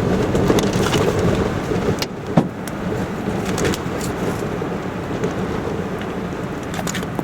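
Steady rush of rain and wind from inside a vehicle, with a few sharp taps and a knock about two and a half seconds in.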